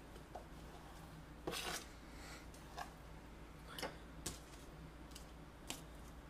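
Scattered soft knocks and clicks of a knife on a cutting board as raw chicken breast is cut into chunks, about five of them, the loudest about a second and a half in, over a faint steady low hum.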